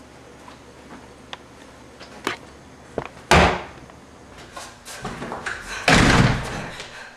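Household knocks and bangs: a few light knocks, then a sharp loud bang, then rustling handling and a second, longer and rougher bang a little before the end, the sort made by a drawer or door being shut hard.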